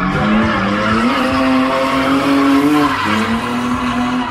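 A drifting car's tyres squeal and skid through a long slide while its engine revs hard. The engine note dips and climbs again a few times as the throttle is worked.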